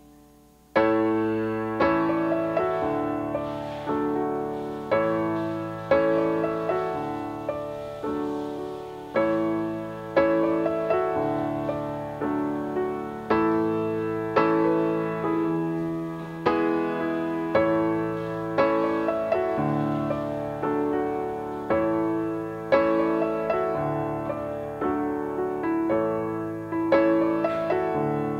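Background piano music that starts about a second in, with notes and chords struck at a steady pace, each dying away before the next.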